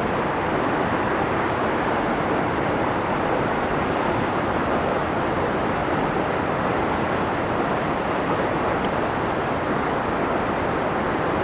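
Waterfall: a steady, unbroken rush of falling and churning water.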